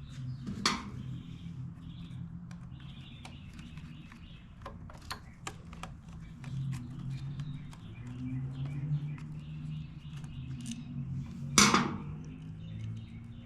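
Scattered light clicks and knocks of hand tools and generator parts being handled during disassembly, with one sharp clack a little before the end, over a steady low hum.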